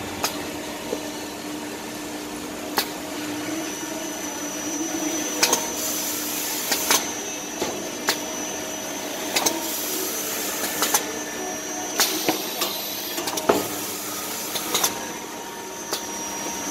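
Automatic maxi roll paper-cutting band saw machine running: a steady mechanical hum, with a high whine coming in a few seconds in. Sharp mechanical clacks come every second or two as the machine works through its cycle.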